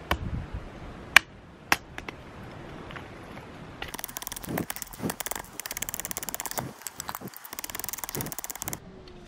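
Small hatchet striking wood twice, two sharp knocks about half a second apart, then a long run of fast scratchy crackling as the blade is worked along a thin stick, splitting off kindling, which stops just before the end.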